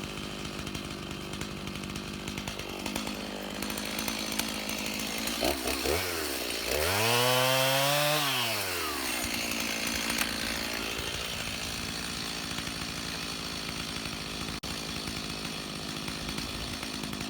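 Two-stroke Stihl Farm Boss chainsaw running steadily, its engine pitch rising and falling once in the middle as it is throttled up and let back down.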